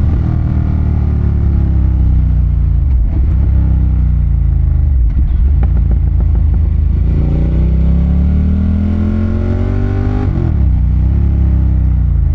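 Ducati Monster 1200's L-twin engine under way. Its note falls as the bike slows over the first few seconds and stays low for a while. It then climbs steadily as the bike accelerates, drops sharply near the end, and holds steady.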